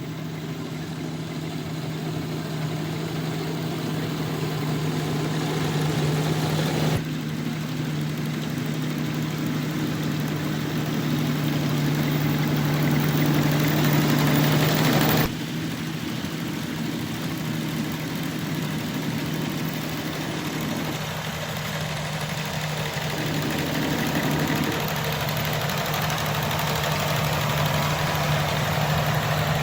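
Combine harvester's engine running steadily at working speed, a constant low hum with a broad mechanical rush over it. The sound changes abruptly about 7 and 15 seconds in.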